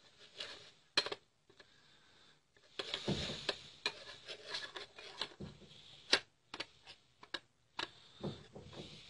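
A spoon clinking, tapping and scraping against a small bowl as rose water is added to gram flour to make a paste, with irregular sharp clicks and a rougher stretch of handling noise about three seconds in.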